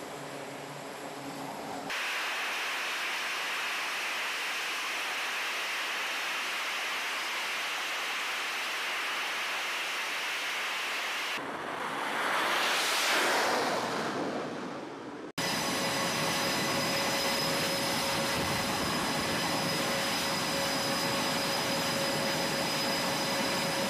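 Jet engines of carrier fighter jets (F/A-18s) running at high power on the flight deck, a steady loud roar. Past the middle a jet's roar swells and fades as it launches off the catapult. After an abrupt cut, engines run on with a steady high whine.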